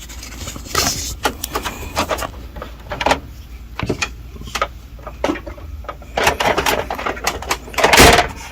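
Plastic clicking and knocking as the automatic document feeder of a Canon imageCLASS D1350 copier is handled on its newly replaced hinge, with a louder clatter near the end.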